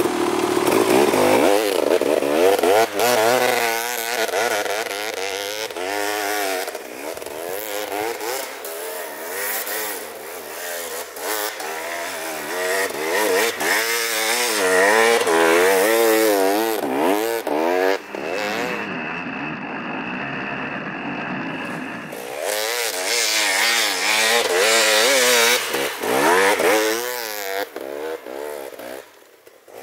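KTM 300 XC-W two-stroke single-cylinder dirt bike with a full FMF exhaust, revving hard and repeatedly as it ploughs through deep snow, the engine note rising and falling over and over. The sound is briefly muffled about two-thirds of the way through.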